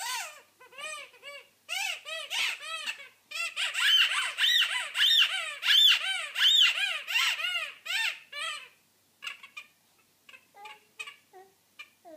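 A baby about eight and a half months old squealing over and over: short high-pitched squeals, each rising and falling in pitch, two or three a second, loudest midway. After about nine seconds they give way to softer, scattered little vocal sounds.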